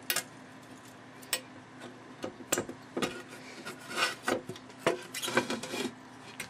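Sheet-metal gas meter case being opened and handled by hand: irregular scrapes, clicks and light metallic clatter as the lid, its soldered seam cut, is lifted and shifted about.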